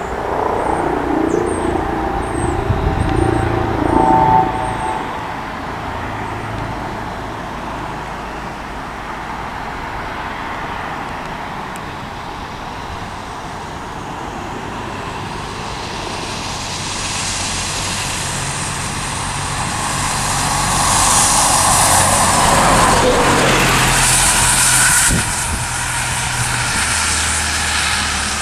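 A Volvo double-decker bus approaches along a concrete guided busway, its engine and tyre noise swelling over several seconds. It passes close about three quarters of the way through, where the sound drops suddenly, and the engine goes on running as it moves away. Birds chirp faintly in the first few seconds.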